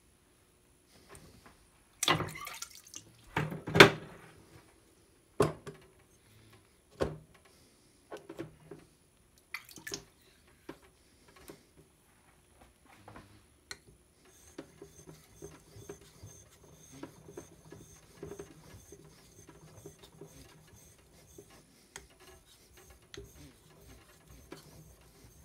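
Whetstones being swapped in a metal clamping stone holder at a wet sharpening bench: a run of hard knocks and clunks of stone against metal, the loudest about four seconds in, with water dripping. From about halfway there is only faint, uneven handling and scraping.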